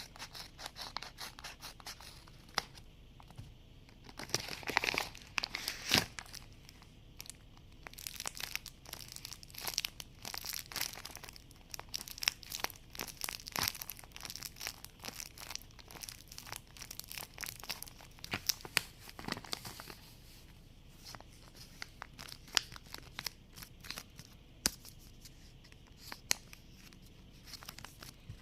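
Hands crinkling and tearing paper and tape: a stream of small clicks and rustles, busiest and loudest in the first half.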